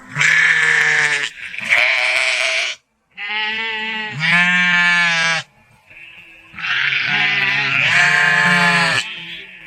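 Sheep bleating: about six loud, drawn-out bleats in three pairs, each bleat about a second long.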